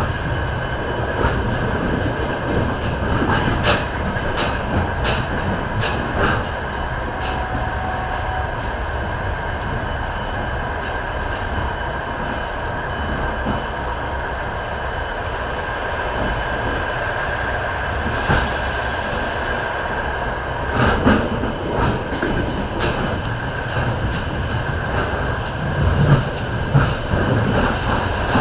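A passenger train running on the rails, heard from inside the carriage: a steady rumble with a faint high whine, and sharp clicks from the wheels, a cluster of them about four to six seconds in. Near the end another train passes close alongside and the rumble swells.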